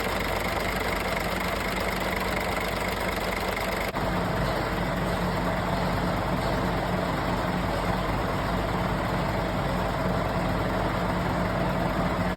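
Scania truck diesel engine idling steadily with a high, steady whine on top for about the first four seconds, from a failing V-belt tensioner and a frayed V-belt. After a brief dip about four seconds in, the whine is gone and the engine idles on alone.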